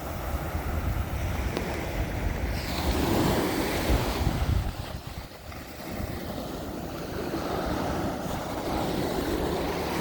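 Ocean surf breaking and washing onto the shore, with wind buffeting the microphone. The wash swells about three to four seconds in, falls back, then the surf goes on steadily.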